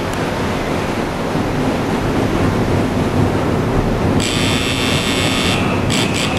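Ferry propeller wash churning the water against the berth's pilings, over a low rumble from the ship's engines, with wind on the microphone. About four seconds in a high buzzing hiss sounds for over a second, followed by a few short bursts of it near the end.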